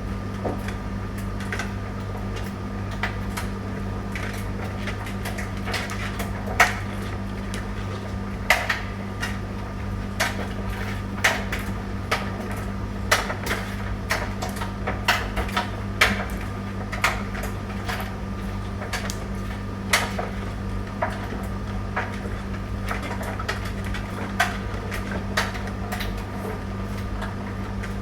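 Tumble dryer running: a steady motor hum with irregular clicks and knocks, about one or two a second, from the tumbling drum.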